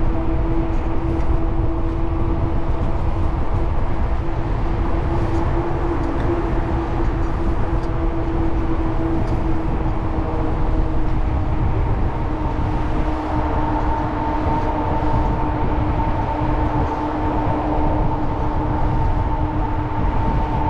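Wind rushing over the microphone of a moving bicycle, with a steady hum of a few held tones; a higher tone joins about two-thirds of the way through.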